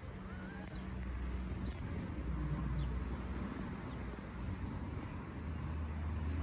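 Low steady outdoor rumble with a few faint, short high chirps.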